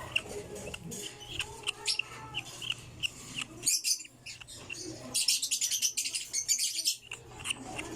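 African lovebirds giving short, high chirps over and over, with a dense run of rapid scratchy clicks about five seconds in that lasts a second and a half.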